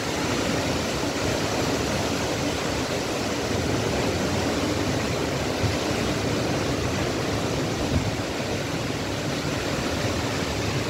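Strong dust-storm wind blowing steadily through trees and against the microphone, a continuous rushing noise with small gusts.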